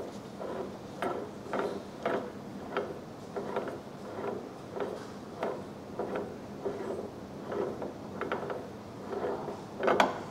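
Retaining nut being spun by hand off the threaded arbor shaft of a disc brake lathe, giving a steady run of clicks about two a second, with a louder click near the end.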